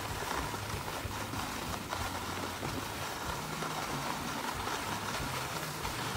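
Skis sliding steadily down a groomed snow track: a constant rushing noise with no distinct strikes.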